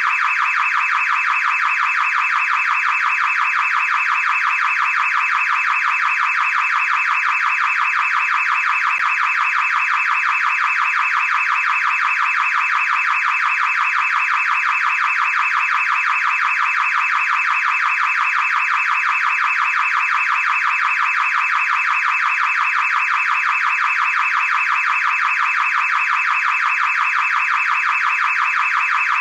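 Car alarm siren sounding continuously and loudly, a rapid unbroken warble that never pauses or changes.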